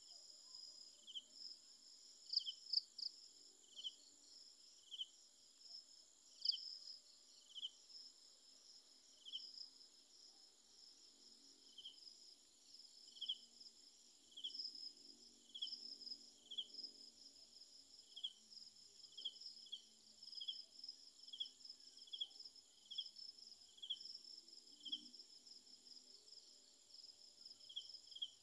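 Crickets and other night insects calling: a continuous high, pulsing trill with a separate short chirp repeating about once a second.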